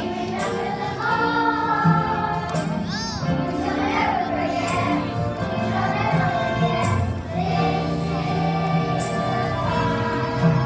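A choir singing a song with instrumental accompaniment, voices holding long notes.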